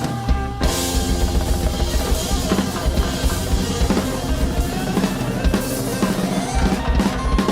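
Recorded candombe music from a Uruguayan band, with a drum kit and candombe drums beating steadily over bass and other instruments.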